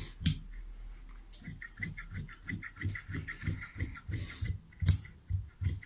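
Large tailor's shears cutting trouser cloth laid on a table: a steady rhythmic run of snips, about three a second.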